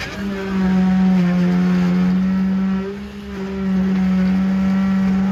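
Concrete poker vibrator running, a steady high-pitched motor hum whose pitch drops slightly about a second in as its load changes.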